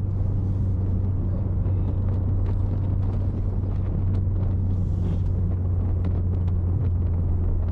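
Steady low drone of a car's engine heard from inside the cabin, holding an even level.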